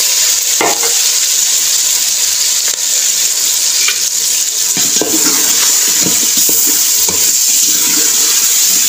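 Diced potatoes and peas sizzling in hot oil and masala in a metal pot, a steady hiss while they are sautéed. From about five seconds in, a spoon scrapes and knocks against the pot again and again as the vegetables are stirred.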